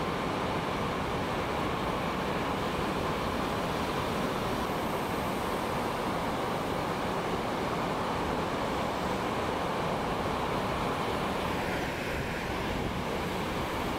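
Ocean surf: waves breaking and washing in, a steady, unbroken rush of water noise.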